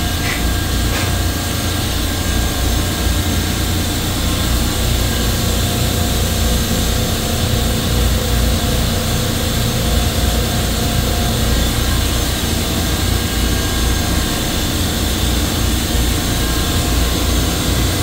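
Steady, loud machinery drone with a deep rumble and a few faint steady tones: supermarket refrigeration compressor racks and their equipment running in the machine room.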